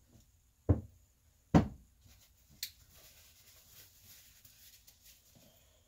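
Two sharp knocks about a second apart as a piston and its wrist pin are set down on the workbench, followed by faint rustling of a shop rag as hands are wiped.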